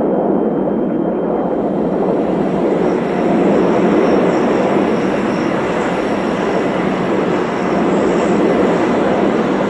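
A-10 Thunderbolt II's twin General Electric TF34 turbofans: a steady jet rush as the aircraft comes in on approach with its gear down. The sound grows brighter about a second and a half in as it nears, with a faint high whine on top.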